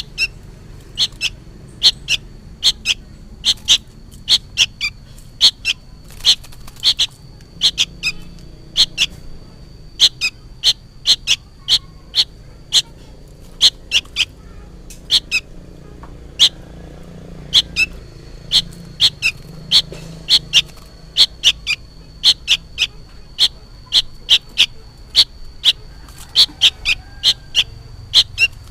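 Juvenile sooty-headed bulbul giving short, sharp calls over and over, nearly two a second and sometimes in quick pairs. The uploader takes this noisy calling for a fledgling calling to its parent, though he says he can't be sure.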